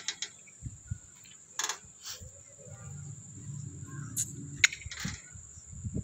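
Crickets chirring in a steady high-pitched tone, with a few sharp clicks and knocks, the loudest about four and a half seconds in, over a faint low rumble.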